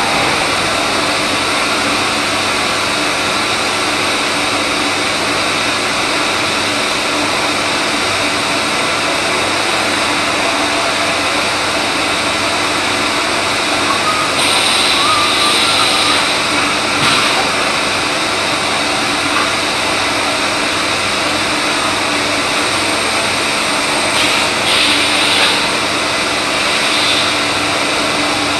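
CNC machine running steadily while machining a shaft. A brighter hissing sound rises over it twice, about halfway through and again near the end, each time for a second or two.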